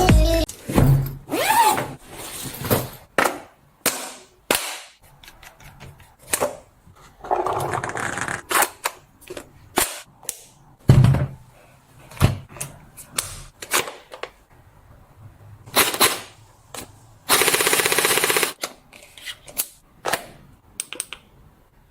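Plastic toy gun being shot and worked: a string of separate sharp clicks and snaps at irregular spacing, with two longer rattling bursts, the second about seventeen seconds in and lasting over a second.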